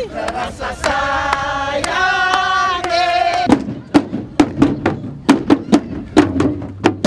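A chanted call held on two long steady notes, then a tifa hand drum struck in quick even strokes, about four a second, from about halfway through.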